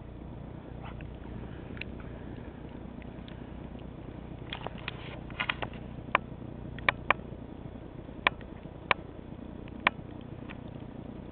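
Steady low outdoor rumble on the microphone, with a scattered run of short, sharp clicks or crunches starting about halfway through.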